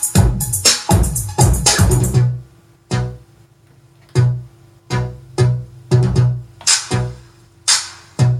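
Music from a live DJ mix on a DJ controller. A busy beat drops out about two seconds in, leaving a sparse stretch of spaced bass hits over a held note.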